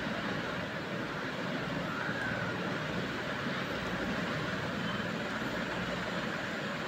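Steady background noise, an even hiss and rumble with no distinct knocks or strokes.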